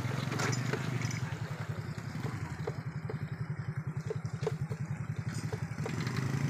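Small motorcycle engine running at low revs with a fast, even putter; a few light clicks sound over it.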